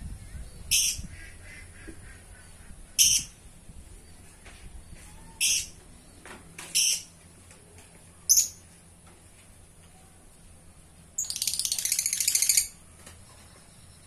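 Lovebird calling: five short, shrill, high calls a couple of seconds apart, then near the end a rapid chattering run lasting about a second and a half.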